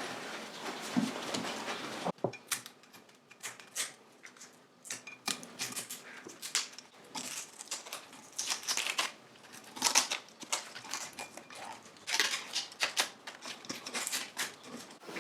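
Hand work on a metal motorcycle swinging arm: irregular scraping, brushing and clicking strokes, after a steady hiss that cuts off about two seconds in.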